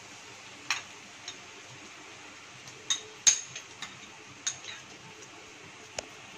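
Metal spoon clinking and tapping against a steel bowl and the pan as beaten egg is scraped out into the pan: about eight separate sharp clinks, the loudest a little past three seconds in.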